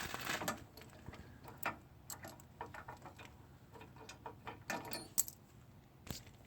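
Faint, irregular small metal clicks and ticks as a bolt is turned by hand into a tractor's sleeve hitch, with a couple of sharper clicks near the end.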